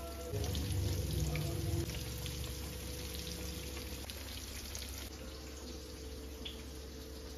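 Oil sizzling and crackling steadily as floured pieces shallow-fry in a stainless steel frying pan, with a louder low rumble for the first second or so.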